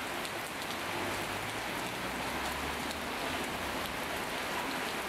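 Heavy downpour of rain on a wet street and garden: a steady hiss with scattered sharp drop splashes. A low rumble swells underneath it for about two seconds in the middle.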